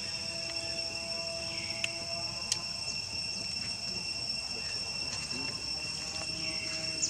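Steady high-pitched insect drone from the surrounding forest, holding even pitches throughout, with a couple of faint clicks about two seconds in.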